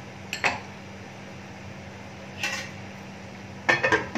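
A steel lid clanking onto a stainless-steel kadhai: a light clink about half a second in, a short scrape around two and a half seconds, then a quick cluster of metal clanks near the end as the lid goes on.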